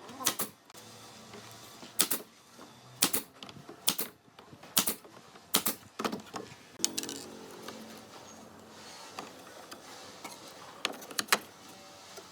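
Sharp knocks of strikes on wood, about eight of them at uneven gaps of roughly a second, as in nailing or knocking boards together.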